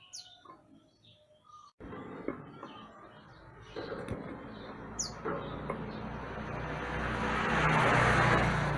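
Mantenan gunung songbird giving short high chirps and a few falling whistles. About two seconds in, a loud rushing noise cuts in suddenly and swells toward the end, louder than the bird.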